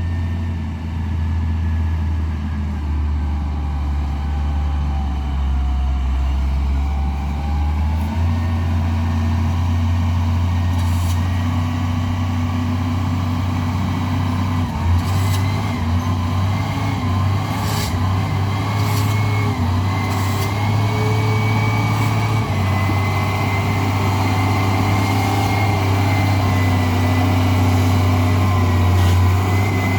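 Heavy diesel engine running steadily, with a faint whine above it that drifts slightly up and down.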